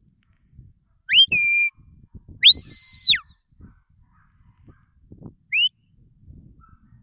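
Sheepdog handler's whistle commands: three high whistles. The first, about a second in, is a short rising note that drops to a lower held tone. The second, longer one rises, holds and falls, and a short rising chirp comes near the end.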